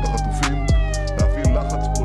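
Background music with a steady drum beat. Over it a siren-like wail glides slowly down, then turns back up a little past the middle.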